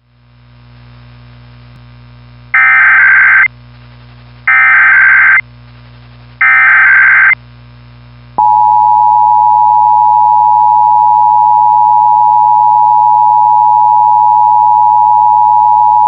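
Emergency Alert System header: three loud one-second bursts of SAME data tones, evenly spaced, then the steady two-tone EAS attention signal starting about eight seconds in, opening an emergency alert message. A low steady hum from the receiver runs underneath.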